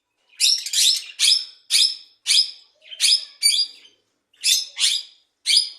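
A bird chirping: a run of about ten short, high calls, roughly two a second, starting about a third of a second in, with a brief pause about four seconds in.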